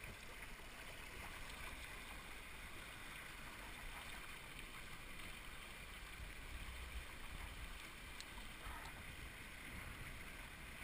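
Steady rush of water along the hull of a small homebuilt Skipjack sailboat under way in choppy water, with a couple of faint ticks about eight seconds in.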